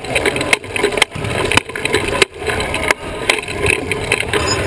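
Sports wheelchair rolling across a hardwood gym floor, heard from on the chair itself: a continuous rumble from the wheels with scattered clicks and knocks from the frame.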